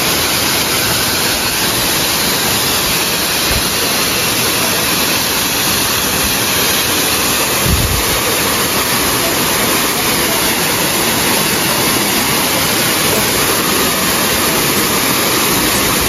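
A waterfall pouring: a loud, steady rush of falling water, with a brief low thump about halfway through.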